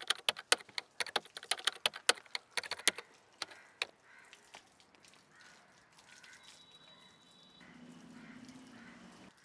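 Water from a garden hose splashing onto a bicycle: a quick, irregular patter of sharp splashes and drips for about the first four seconds, then much fainter.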